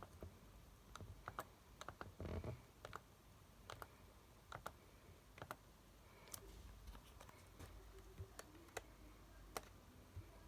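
Faint, irregular clicking of a computer mouse and keyboard, about a dozen separate clicks, over quiet room tone.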